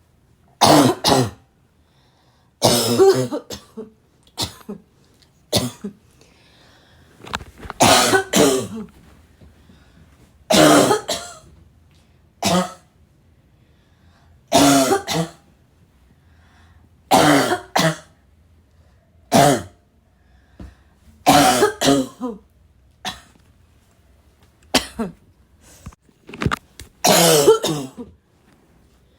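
A girl coughing over and over with a raspy cough, in short single and double coughs every couple of seconds.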